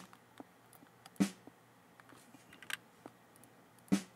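Single recorded snare drum hits played back, each a short sharp crack, one a little over a second in and another near the end, with a few soft computer clicks between.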